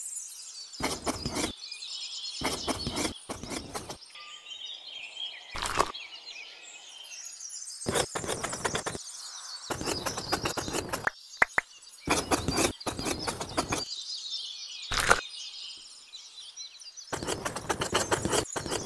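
A small trowel scraping and dabbing wet cement mortar against a concrete pillar and slab, in repeated short bursts of rapid scraping clicks. Birds chirp continuously in the background.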